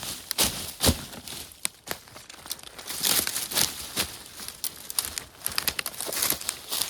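Footsteps crunching through snow: irregular crunches and crackles, step after step.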